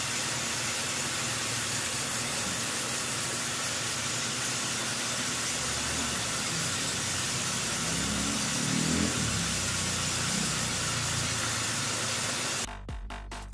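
Steady hiss of a jet of water sprayed from a hose nozzle into the blower housing of a window-type air conditioner, with a low hum underneath that grows louder in the middle. Music cuts in abruptly near the end.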